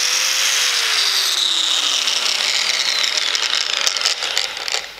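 Angle grinder with a flap disc running free at full speed after a soft start, a steady high whine with no load on the disc. It winds down near the end.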